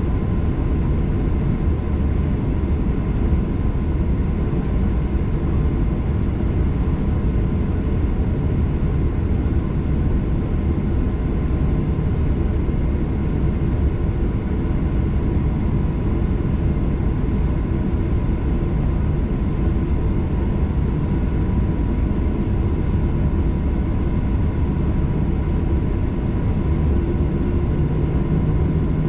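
Inside the cabin of a Boeing 737-800, its CFM56 engines running at idle while the plane is on the ground. The sound is a steady rumble with a thin, steady whine.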